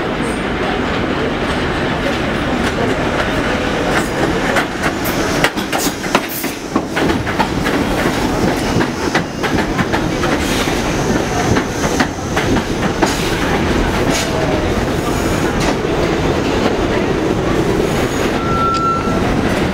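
Bombardier R62A subway train pulling into an elevated station, running loud and steady, with a run of sharp wheel clicks over the rail joints as the cars pass. A short high squeal sounds near the end.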